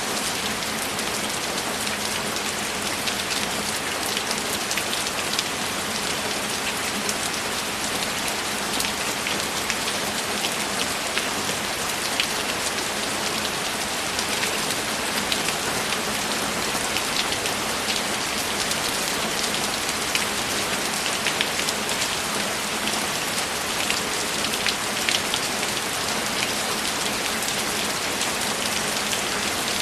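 Steady rainfall, an even hiss with many individual drops ticking sharply on a surface.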